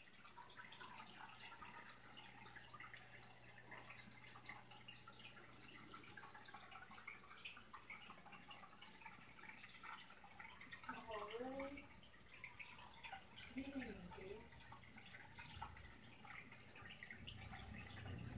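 Faint dripping and trickling water in a home aquarium from the filter outflow or air bubbles, over a low steady hum. Two brief faint pitched sounds come about two-thirds of the way through.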